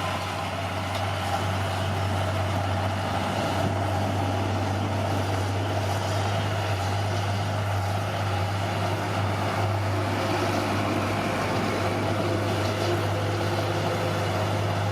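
Bulldozer's diesel engine running steadily with a constant low hum.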